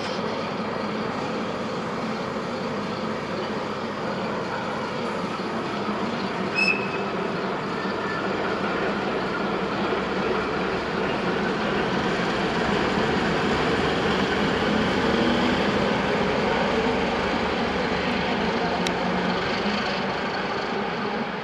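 Czech Railways class 749 diesel locomotive's engine running steadily, growing louder about halfway through and easing slightly near the end, with one brief sharp click about a third of the way in.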